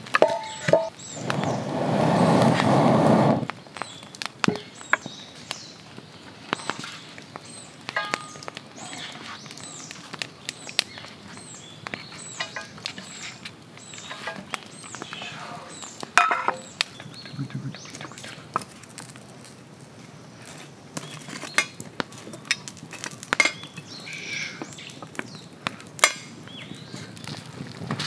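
Wood campfire crackling and popping, with knocks and clinks from an iron frying pan and utensils as food is laid in it. A loud rushing, rustling noise lasts about two seconds near the start.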